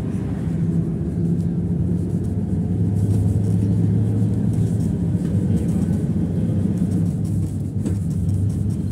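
PAZ-32053 bus's V8 petrol engine running under way, heard from inside the cabin, with road and body rumble. The engine note steps lower about three seconds in.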